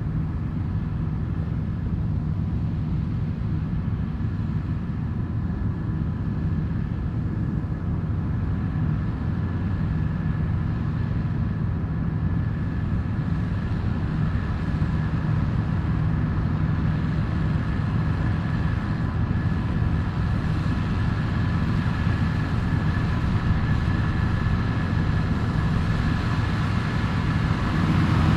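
Dronningborg D2600 combine harvester running steadily while harvesting barley: a steady engine note with a fainter high whine above it, growing gradually louder.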